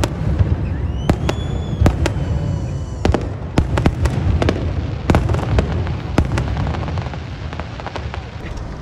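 Aerial firework shells bursting in a display, a run of sharp bangs and crackles over a deep rolling rumble, with a brief high whistle about a second in. The bangs thin out and the rumble fades near the end.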